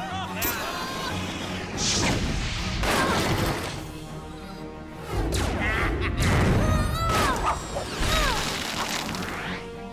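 Action background music under cartoon fight sound effects: several hits and crashes, with whooshes.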